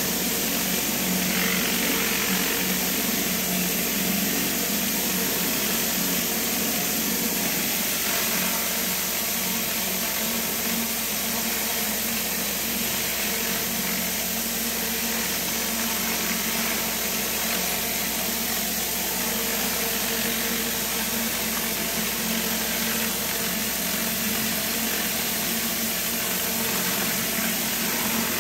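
Pressure washer running steadily, its engine hum and water spray continuous with no change in level.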